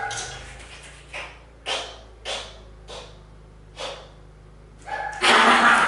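A pet's short breathy huffs during toy play, about five of them spaced irregularly, followed near the end by a louder, fuller sound.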